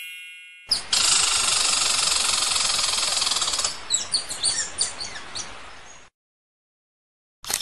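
A chime rings and fades, then comes a waterfall's steady rushing hiss. A few short bird chirps sound over it about four seconds in, and it cuts off suddenly.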